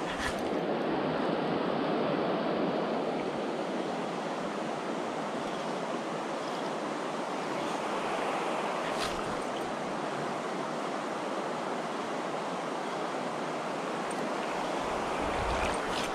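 Steady rush of river water from a mountain trout stream, with a couple of faint clicks.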